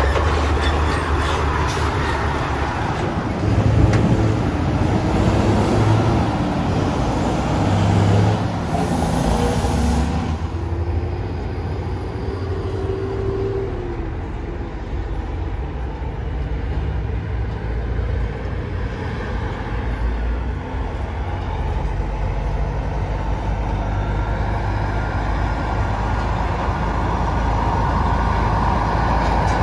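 Heavy diesel truck engine running while the truck drives along, with road and traffic noise. A hiss of air cuts off sharply about ten seconds in.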